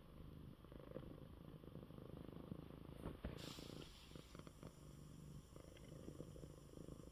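Domestic cat purring softly and steadily, a low rapid rumble.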